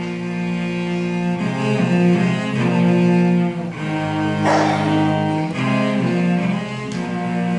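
Cello and bassoon playing held notes together in a slow, sustained passage, the notes changing every second or two, with a brief rasping noise about halfway through.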